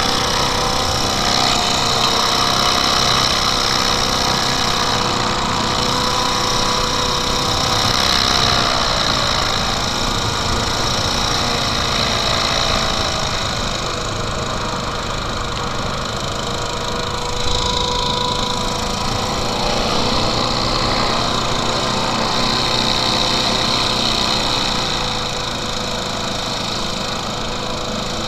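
Small hovercraft's engine and air propeller running steadily as it glides slowly over snow, the engine note wavering up and down a little.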